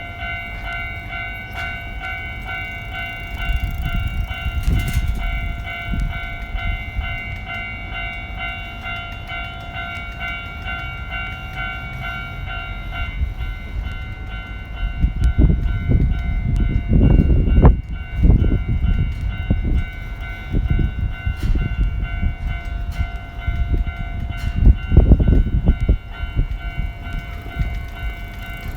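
Level-crossing warning bell ringing in a steady repeating chime while a Nankai Koya Line electric train runs over the crossing. The train's low rumble and wheel clatter grow loud from about halfway through.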